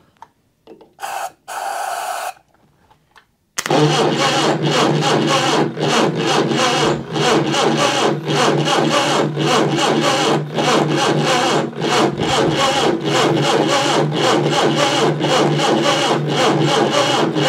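A short hiss of aerosol starting fluid sprayed into the carburettor, then, from about three and a half seconds in, the Reliant Regal 600cc four-cylinder engine cranking over on its starter motor with an even, fast pulse, turning steadily without firing. It does not catch because the ignition is giving no spark.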